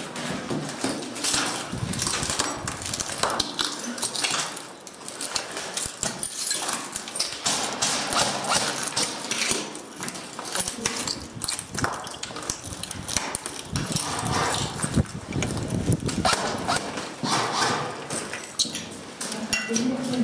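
Footsteps of airsoft players on a hard floor, with scattered irregular knocks and clicks.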